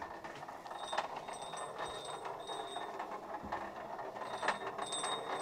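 A working water mill's millstone and its feed mechanism running: a steady rumble with an irregular clatter of knocks and short, high metallic rings that recur every second or so.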